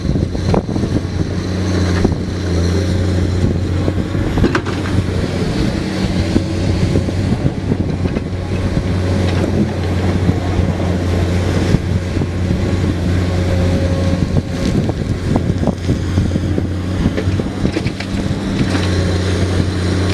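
Komatsu PC210 excavator's diesel engine running steadily under load, a deep continuous drone with scattered sharp knocks and clatter over it.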